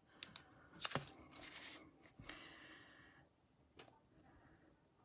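Faint crafting handling sounds: a glue dot being taken off its roll and a paper die-cut leaf pressed onto a card, heard as a few soft clicks and short rustles in the first three seconds.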